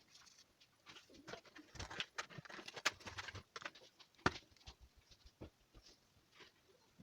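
Faint scattered clicks, taps and rustles of a Tassimo coffee maker and its capsule being handled, with one sharper click a little past four seconds in.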